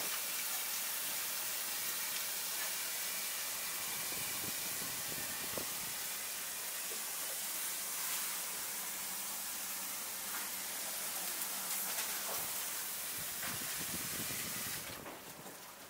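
Tap water running steadily into a metal bowl in a stainless-steel sink, a continuous hiss with a few small knocks; it falls away shortly before the end.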